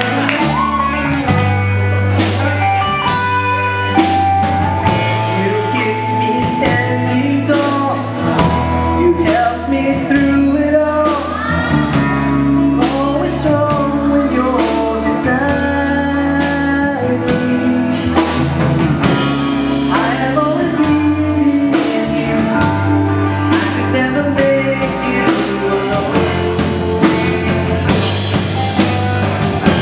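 A singer singing into a microphone with a live band: electric bass guitar and a drum kit with cymbals.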